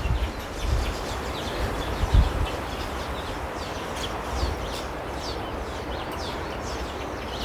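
A flock of finches chirping, many short quick chirps overlapping, over a low rumble with a thump about two seconds in.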